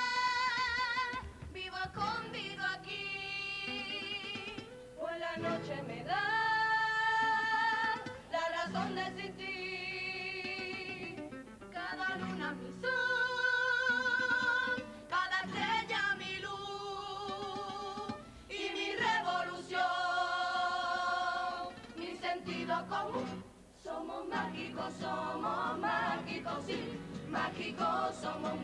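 Carnival comparsa choir singing long held notes with wide vibrato, in phrases of a few seconds separated by short breaths.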